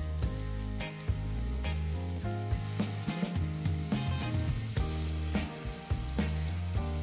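Chopped onion frying in hot oil in a non-stick pan, sizzling steadily as it is pushed around with a plastic spatula. Background music with a bass line plays throughout.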